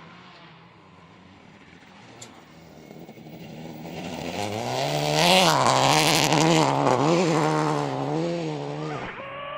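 Rally car approaching and passing at speed, its engine rising to full volume about five seconds in, pitch climbing and dropping repeatedly with throttle and gear changes, with a burst of gravel or tyre noise at the loudest point. It fades away and another engine takes over near the end.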